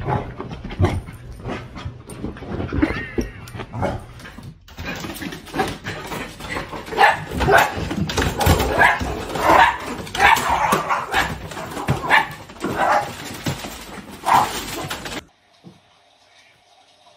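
Small dog barking, a quick series of short barks starting about five seconds in and going on for about ten seconds, then cutting off.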